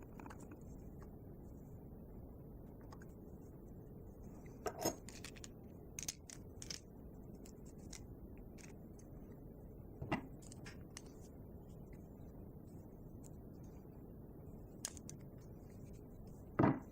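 Scattered light metallic clicks and taps from small hand tools and screws on the parts of a Cox .049 model diesel engine being put back together, a few short strikes several seconds apart over a steady low hiss.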